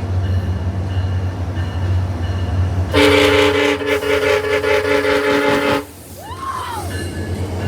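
SunRail commuter train's locomotive air horn sounding one long blast of several notes at once, starting about three seconds in and lasting nearly three seconds before cutting off abruptly, over a steady low rumble.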